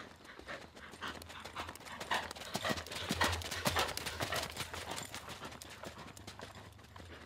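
Hoofbeats of a ridden Pura Raza Española stallion moving on an arena's sand, a quick run of dull knocks. They grow louder about midway as the horse passes close, then fade as it moves away.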